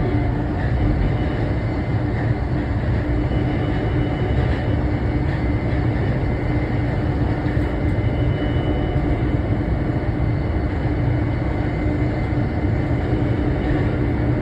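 Steady running noise inside a CDGVAL automated airport shuttle train in motion between stations: an even rumble with a steady low hum.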